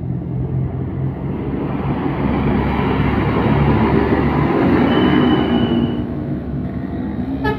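Heavy bus engine running as the bus passes close, its noise swelling through the middle, with a brief high steady tone about five seconds in and a sharp click near the end.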